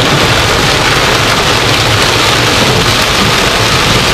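Heavy rain pelting a car's windshield and roof, heard from inside the car as a loud, steady hiss.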